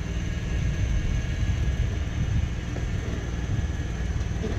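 Jeep Wrangler engine running steadily as the Jeep crawls over a rock ledge.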